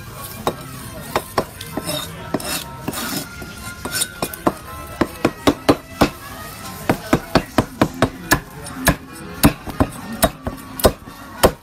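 Cleaver chopping crispy roast pork on a thick round wooden chopping block: sharp, irregular chops, sparse at first and then coming a few a second from about halfway through.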